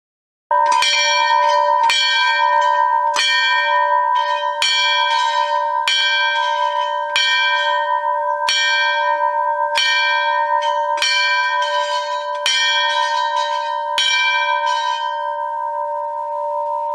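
A temple bell struck about eleven times, a little over once a second, its ringing humming on unbroken between strokes. The strikes stop near the end and the bell keeps ringing out.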